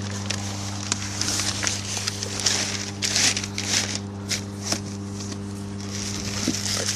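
Newspaper crinkling and rustling in irregular bursts as a dead seagull is handled in it, over a steady low hum.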